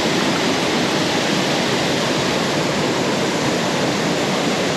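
Waterfall rushing steadily into its plunge pool, heard close by.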